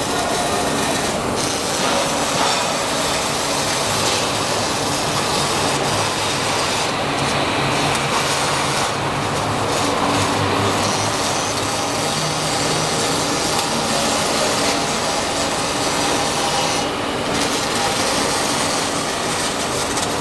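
Robotic arc welding: a steady, dense crackling hiss from the welding arc, with a faint machine hum underneath, running without a break.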